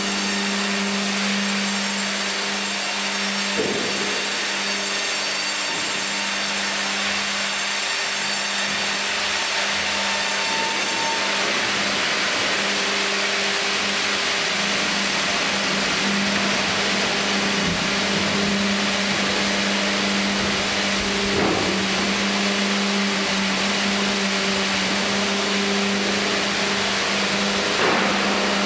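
Fimaksan Fi.120 tandem band saw running and sawing a log as the Fi.130 hydraulic carriage carries it through: a steady machine hum under the hiss of the cut. A few brief knocks stand out along the way.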